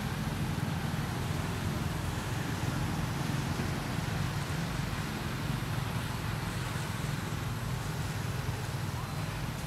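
Steady low mechanical rumble with a faint, even hiss above it, unchanged throughout.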